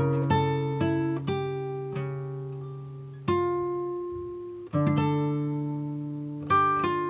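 Music on a plucked string instrument: slow single notes and chords, each left to ring and fade, with a few quicker notes near the end.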